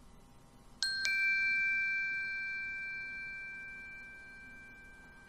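A recorded bell sample played back: the bell is struck about a second in, with a second strike a moment later. It then rings on several clear, steady tones that slowly fade away.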